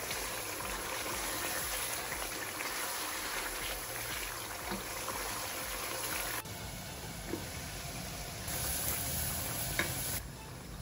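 Thick chicken curry sizzling and bubbling in a non-stick wok on a high gas flame as a steady hiss, stirred with a wooden spatula, with a few soft knocks of the spatula against the pan.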